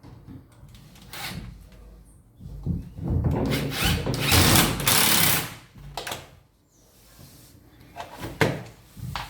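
Power drill running for about three seconds in the middle, with a few short knocks before and after.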